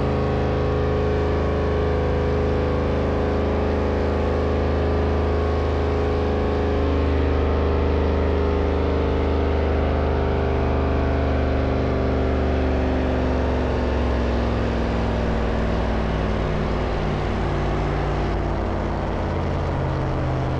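Heavily loaded diesel engine of a pulling tractor running hard while dragging a weight sled down the track. The engine note is loud and steady, and its pitch sinks slowly as the engine labours against the load.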